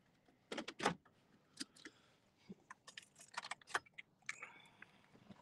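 Faint, irregular light clicks and rattles of small hard objects being handled inside a car, starting about half a second in.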